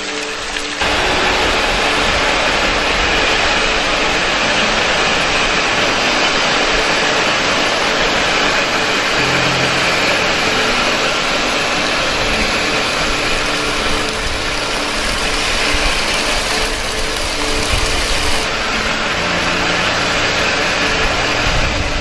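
Steady rush of hot-spring water falling over rock, a loud, even hiss that comes up sharply about a second in, with a faint low hum underneath.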